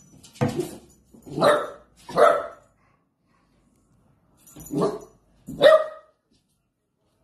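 A cattle dog cross puppy barking at the cats. Three barks come in the first couple of seconds, then after a short pause two more about a second apart.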